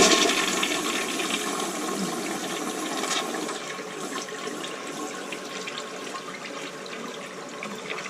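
A 30-year-old Briggs toilet flushing after its repair: a loud rush of water that begins just before and slowly dies away.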